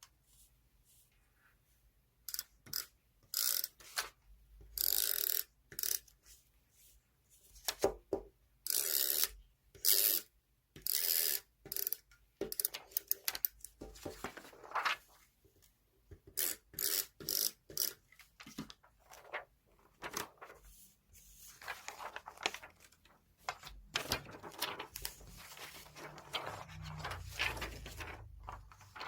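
Magazine paper being handled for scrapbooking: short bursts of cutting, crinkling and rustling, then a longer stretch of continuous rustling and handling near the end.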